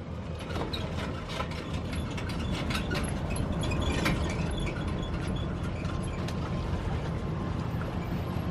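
A steady low rumble with many quick mechanical clicks over it, the clicks thickest in the first half.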